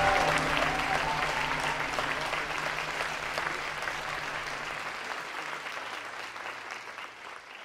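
Audience applauding, with the last held notes of the music dying away in the first few seconds; the applause fades out steadily.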